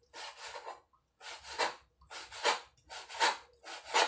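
Kitchen knife slicing raw bacon on a plastic cutting board: about five rasping strokes at an even pace as the blade is drawn through the meat against the board.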